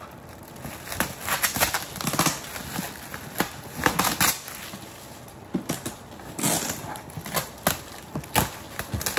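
Gift packaging being handled and unwrapped: irregular rustling and crinkling of wrapping with sharp knocks and clicks of boxes being moved.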